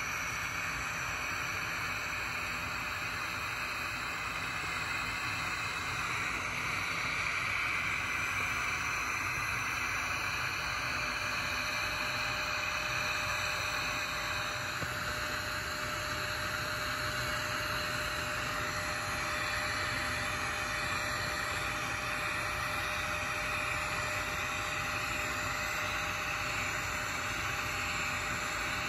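Steady hiss of a TIG welding arc running the cap pass on a 2-inch carbon steel pipe, with 1/8-inch ER70S-6 filler rod being fed in.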